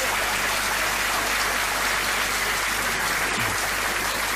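Audience applauding in a hall, a steady dense clapping.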